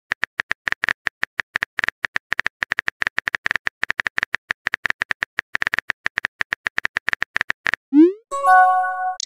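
Rapid phone-keyboard typing clicks, about eight to ten a second, as a text message is tapped out. About 8 seconds in they stop, and a short rising swoop and a brief chime follow as the message is sent.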